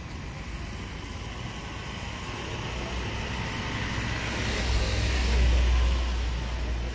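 A road vehicle passing by, its engine and tyre noise growing louder to a peak about five and a half seconds in, then fading.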